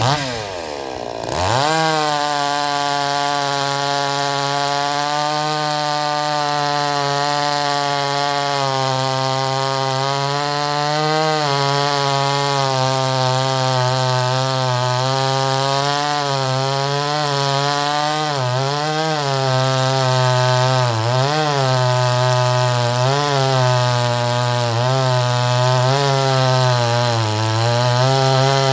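Huyosen gas chainsaw's two-stroke engine running near full throttle while cutting through a log. Its pitch drops and recovers in the first second or so. Further on it dips briefly several times as the chain loads up in the wood and then picks up speed again.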